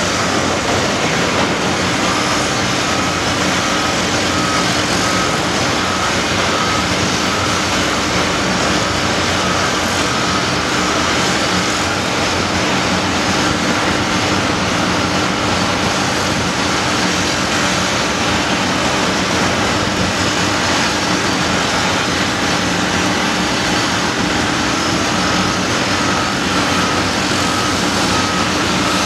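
Cat 345CL hydraulic excavator's diesel engine and hydraulics running steadily under load while it digs shot rock: a continuous loud drone with a steady hum.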